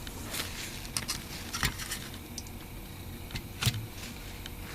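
A few light clicks and knocks of hand tools and metal parts being handled as a power supply is taken apart, the sharpest about one and a half seconds in and again about three and a half seconds in, over a faint steady hum.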